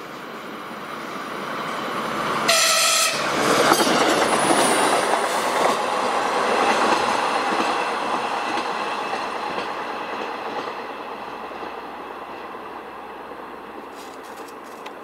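PESA 620M diesel railbus passing: it sounds a short horn blast about two and a half seconds in, its running noise is loudest just after, then fades steadily as it goes away.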